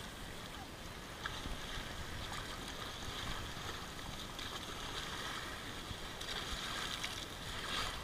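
Shallow lake water lapping at the shoreline and being splashed by children wading, a steady wash with a few small splashes standing out.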